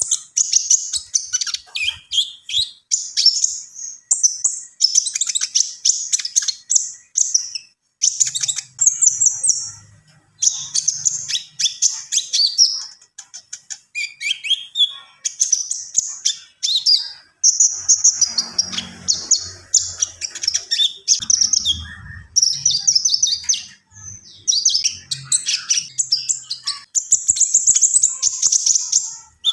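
A konin songbird singing continuously and vigorously: rapid, high-pitched chirping and trilling phrases strung together with brief pauses, the varied 'isian' fill-in song a keeper trains it to carry. A faint low hum sits underneath in places.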